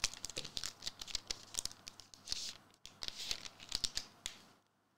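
A Magic: The Gathering booster pack's foil wrapper being torn open and crinkled by hand: a run of crackling, rustling bursts and small clicks that stop near the end.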